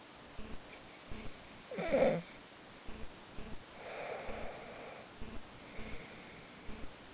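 Snoring in sleep: one loud snore about two seconds in that drops steeply in pitch, then a softer, breathier one about four seconds in. A faint, regular clicking runs underneath.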